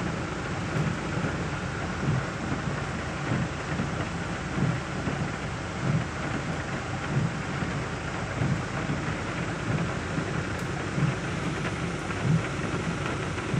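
A torrent of floodwater rushing down the mountainside and across a road, a steady dense rush, with low surges recurring about once a second.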